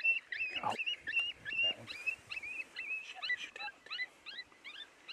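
Chorus of coyote yips and short howls: many high calls overlapping, each quickly sliding up and down in pitch, several a second.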